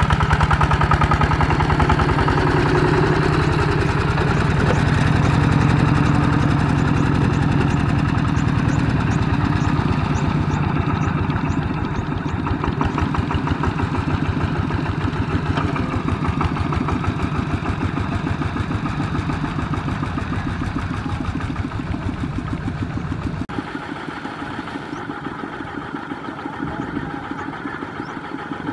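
Single-cylinder diesel engine of a two-wheel walking tractor running steadily with a fast, even beat as it pulls a loaded trailer, slowly fading as it moves off. About three-quarters of the way through, the sound drops suddenly to a quieter engine running.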